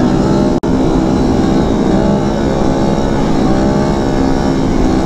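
Kawasaki Z125 Pro's 125 cc single-cylinder engine running at a steady cruise under way, with low wind rumble on the microphone. The sound cuts out for an instant about half a second in.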